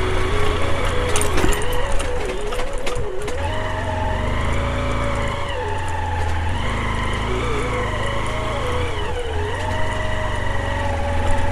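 Motorcycle engine pulling up a slippery red-mud hill track, its pitch rising and falling several times as the throttle is worked, over a steady low rumble.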